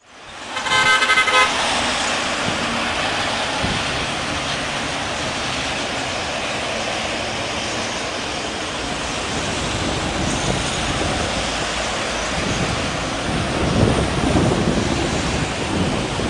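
A vehicle horn toots briefly about a second in, over steady road traffic noise. A heavier vehicle passes with a low rumble near the end.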